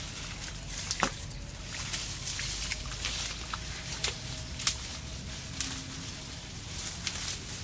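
Bare feet squelching in wet mud and leafy branches rustling as they are pulled, with scattered sharp clicks over a steady hiss.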